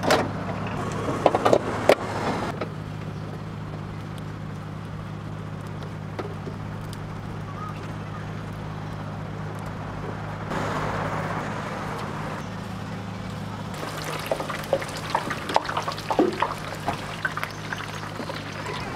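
A steady low machine hum from food-truck equipment, under intermittent clicks, taps and clatter from hands working churro dough and metal utensils, with a brief rushing hiss about ten seconds in.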